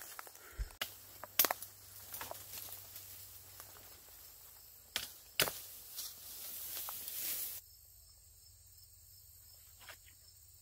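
Footsteps pushing through dense brush: leaves and undergrowth rustling, with sharp twig snaps about a second in and again around five seconds. It drops abruptly to quiet about three-quarters of the way through.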